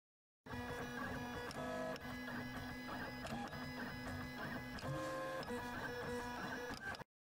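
Printer running: the print-head carriage motor whirs in steady tones that shift in pitch now and then, over rapid clicking and rattling. It starts about half a second in and cuts off abruptly near the end.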